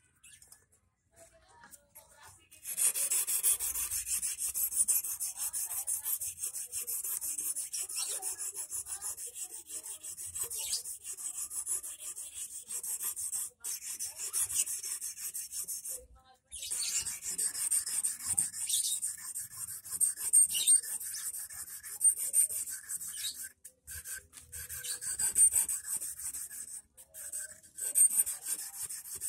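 Quick back-and-forth scraping of an abrasive on the tip of a 2.5 mm stainless steel wire as it is hand-sharpened into an eel hook point. It starts about three seconds in and runs in long spells with a few short pauses.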